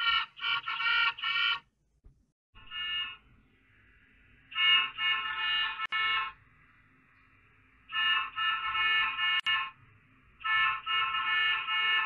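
School bus horn sound effect, pitch-shifted and electronically processed, honking in quick clusters of short blasts about five times, with a faint steady high tone in the gaps between.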